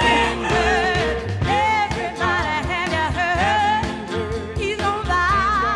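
A song with a singing voice over a steady beat and bass.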